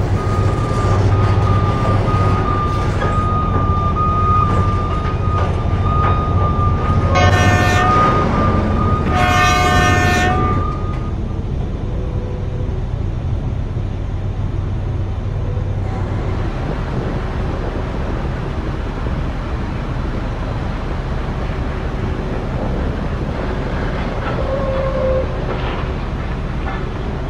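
Mining haul truck's diesel engine running with a loud steady drone while it backs into loading position beside an electric rope shovel, its reversing alarm beeping. Two long horn blasts sound about seven and nine seconds in. The drone eases after about sixteen seconds, leaving a quieter steady machine rumble.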